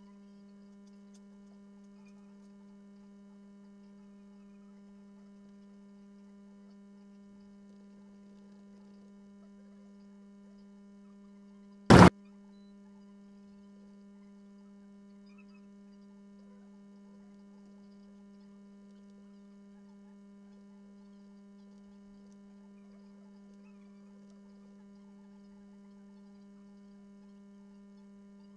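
Steady low electrical hum from the recording chain, with a few faint higher tones over it. One short, loud pop cuts across it about twelve seconds in.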